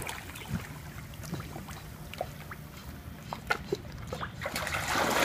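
A dog paddling through a swimming pool: soft sloshing and lapping of water with small scattered splashes, growing into louder splashing near the end.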